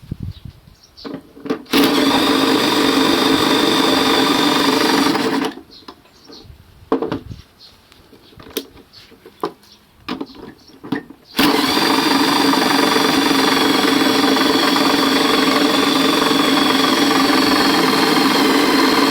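A motor spinning up and running steadily twice, about three and a half seconds and then about eight seconds, with a steady high whine over a dense hum. Short knocks and clicks come between the two runs.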